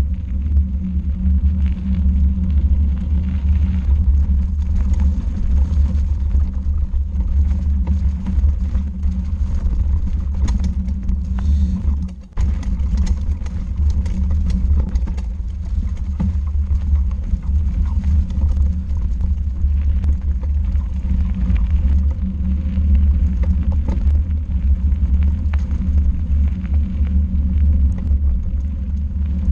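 Steady low rumble of riding along a gravel woodland track, wind and ground noise buffeting a handlebar-mounted action camera, with a brief dip about twelve seconds in.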